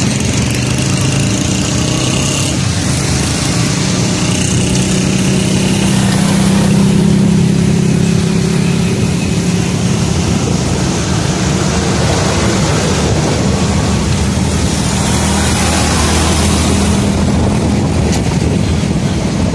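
Steady road-traffic noise: vehicle engines running with a continuous low hum and a broad rushing wash.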